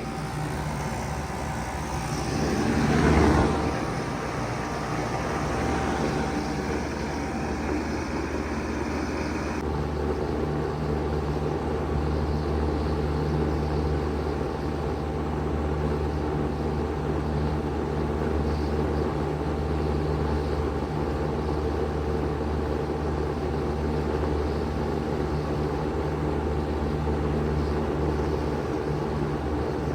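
Bard 3-ton wall-hung heat pump running steadily in cooling mode: a steady hum with a constant tone over it. A brief swell of noise peaks about three seconds in, and a higher hiss drops away about ten seconds in.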